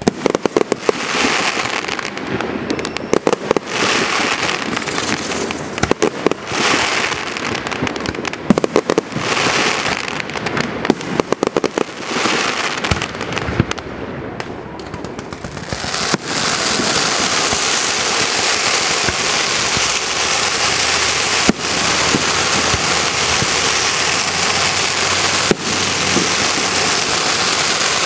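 Aerial fireworks display: shells bursting with a rapid run of sharp bangs and crackling for the first half. About halfway through this gives way to a steady dense hiss, broken only by a couple of single sharp bangs.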